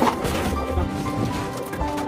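Background music with held notes, with a short knock right at the start.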